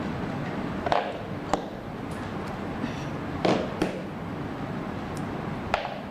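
Handling of a power bank, cables and phone: a few sharp plastic clicks and knocks, two close together about a second in, two more near the middle and one near the end, over a steady background hiss.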